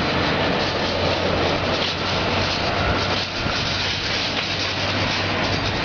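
Boeing 757 airliner's jet engines running as they are started during pushback: a steady, loud rushing noise over a low hum.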